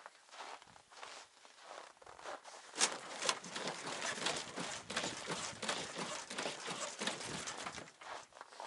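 Boots crunching and squeaking on hard-packed frozen snow, with clothing rustling, as dense irregular crackling that grows louder about three seconds in.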